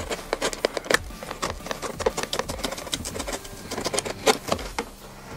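Box cutter blade sawing through the cardboard of a cereal box, a rapid, irregular run of short scratchy clicks.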